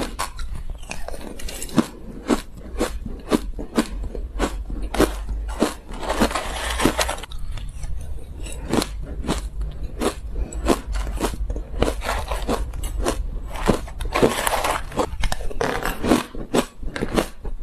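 Crushed ice being bitten and chewed close to a clip-on microphone: a dense run of sharp, crisp crunches. There are two longer grainy scraping stretches, about six and fourteen seconds in, as the spoon scoops more ice from the plastic tub.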